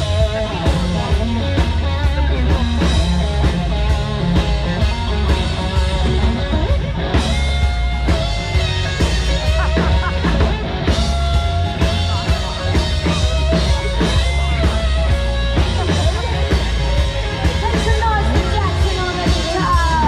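Live band playing amplified rock music, with electric guitars and a drum kit keeping a steady beat.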